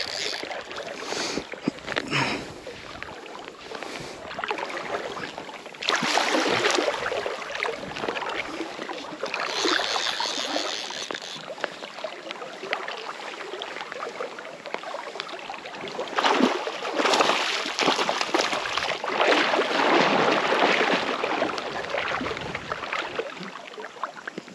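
River water sloshing and splashing in uneven surges while a hooked trout is fought in a shallow run, loudest about six seconds in and again from about sixteen to twenty-one seconds.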